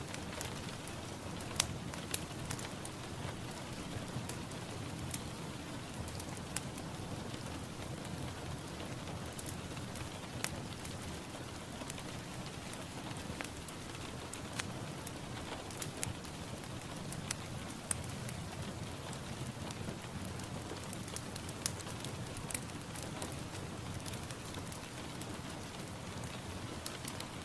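Steady rain falling, with scattered sharp clicks of single drops hitting a surface.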